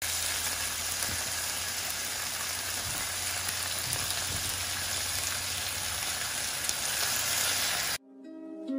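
Seasoned chicken strips sizzling steadily in oil in a frying pan. The sizzle cuts off suddenly near the end, and soft plucked-string music comes in.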